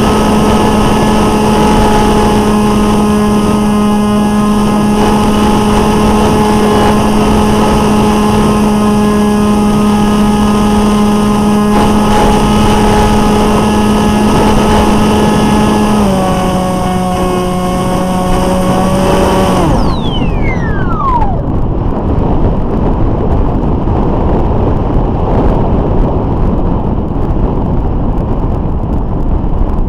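Brushless electric motor and propeller of an RC flying wing, heard from the onboard camera: a steady buzzing drone with many overtones that drops a little in pitch about two-thirds of the way through. About 20 seconds in the motor cuts and spins down with a falling whine, leaving only wind rushing over the gliding airframe and microphone.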